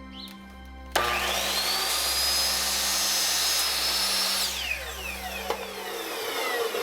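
Miter saw switched on about a second in, its whine rising as the blade spins up, making a 40-degree bevel cut in a small piece of wood. About four and a half seconds in, the motor is switched off and the whine falls away as the blade spins down.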